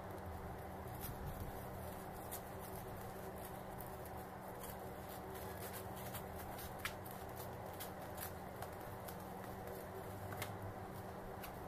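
Scissors snipping through bubble wrap and a plastic mailer bag, giving scattered small clicks and crinkles, over a steady low hum.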